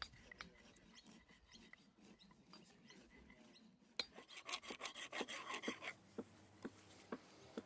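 A hand-held stone scraping along a piece of wood being carved, shaving it smooth. Faint scattered scratches at first, then a louder run of quick scraping strokes about four seconds in, easing back to a few light scrapes.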